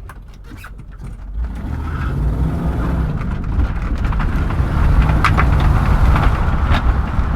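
Land Rover Discovery 2 pulling away onto rough ground, heard from inside the cabin: a low engine and drivetrain rumble builds from about a second and a half in and holds loud, with a few sharp knocks or rattles from the body near the end.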